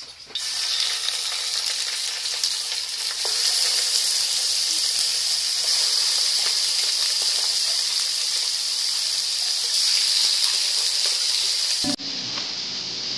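Marinated chicken pieces frying in hot oil in a non-stick pan: a steady, loud sizzle, with a few faint clicks as pieces go in. About twelve seconds in the sound drops abruptly to a quieter, duller sizzle.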